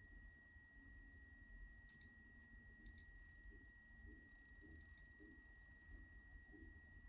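Valve Index base station's spinning rotor giving a faint, steady high-pitched whine. A few faint double clicks come about two, three and five seconds in.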